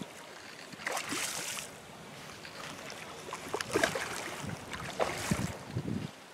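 A hooked snook thrashing at the water's surface, making several splashes: about a second in, near four seconds, and again around five seconds.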